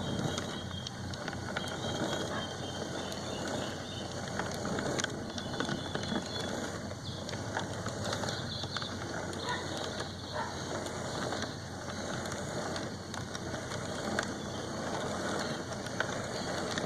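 G-scale model train running along its track: a steady mechanical whirr and rattle of the motor, gears and wheels, with scattered small clicks.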